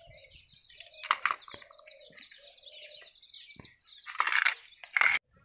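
Small birds chirping continuously, with a hen clucking now and then. Brief scrapes and clatter of steel plates being handled come about a second in and again near the end, the loudest near the end, and then the sound cuts off suddenly.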